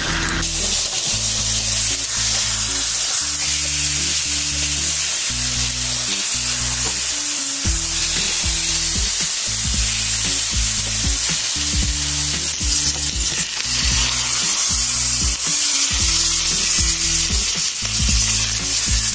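Burger patties sizzling as they fry in hot oil in a stainless steel pan, a steady dense crackle. Background music with a stepping bass line plays underneath.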